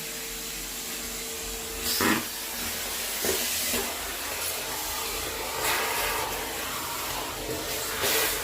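Vacuum cleaner running with a steady airy rush. A thin hum stops about two seconds in, after which the rushing swells in several louder surges, as when the nozzle sucks up debris.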